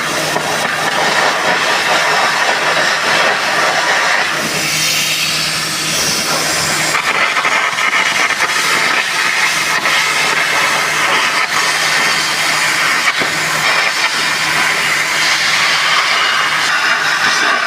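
Welding arc hissing and crackling without a break, over a steady low hum.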